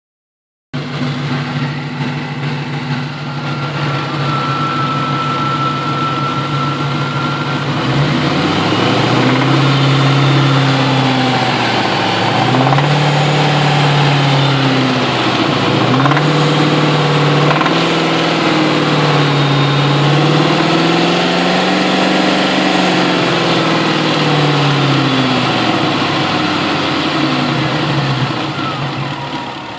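2000 Ford Mustang GT's 4.6-litre V8 idling, then revved repeatedly in short blips about every two seconds from roughly eight seconds in. The revs bring out a rattle that appears only around 2200 rpm and seems to come from the back of the intake.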